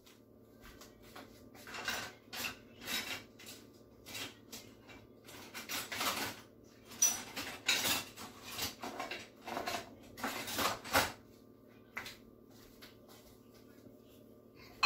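Plates and cutlery clinking and knocking as they are handled, in irregular short clatters throughout, over a faint steady hum.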